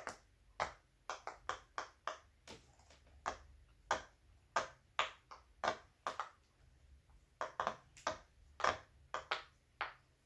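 Silicone pop-it fidget toy being pressed, bubbles popping one after another: about two dozen short sharp pops at an uneven pace, some in quick runs.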